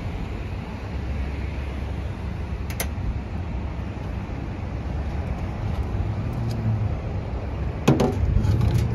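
Steady low rumble of road traffic, with a sharp click about three seconds in and a louder short crackling burst near the end from handling tape and cables at the panel.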